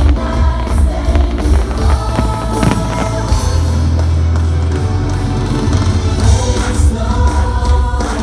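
Loud music with singing over a heavy, pulsing bass beat.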